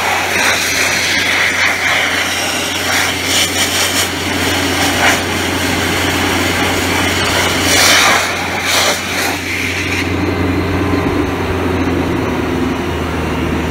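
DB500 Dustless Blaster wet-blasting paint from a steel car guard: a loud hiss of water and crushed-glass abrasive from the blast nozzle over the steady low hum of the air compressor. The blasting stops about ten seconds in, leaving the compressor's hum.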